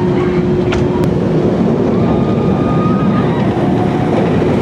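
Wildfire, a Bolliger & Mabillard steel roller coaster, with its train running along the track through the loop as a loud, steady rumble. Wind buffets the microphone, and there are faint voices and a single click under a second in.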